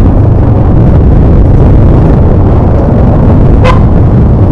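TVS Apache RTR 160 single-cylinder motorcycle running while being ridden, its exhaust loud and low with a choppy rumble. Wind buffets the microphone.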